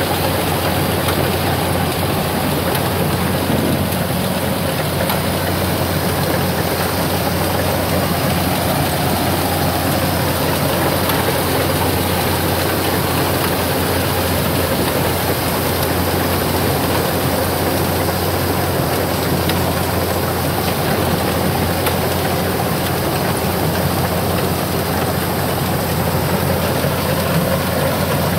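Kubota DC70 rice combine harvester running steadily while it cuts rice: its diesel engine and its turning reel and threshing machinery make an even, unbroken machine noise with a strong low hum.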